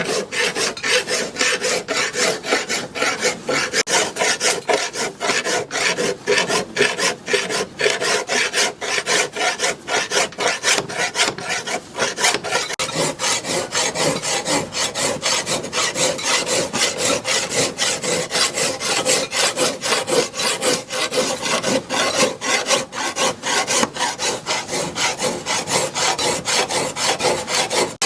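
A hand file scraping back and forth on a steel knife blade in a steady rhythm of rapid strokes, shaping or sharpening the blade.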